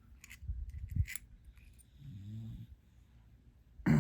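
Small metal padlock parts clicking and clinking as the lock is taken apart, a few light ticks in the first half. A short low murmur from the person comes a little past the middle, and a louder knock comes near the end.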